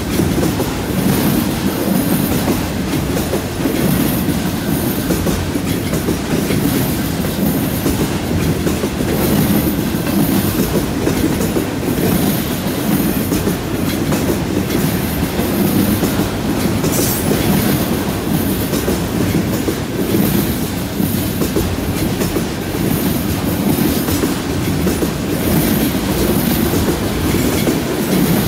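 Freight train of autorack cars rolling past at close range: a steady, unbroken rumble and rattle of steel wheels on rail.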